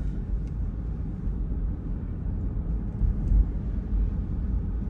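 Steady low rumble of engine and tyre noise inside a moving car.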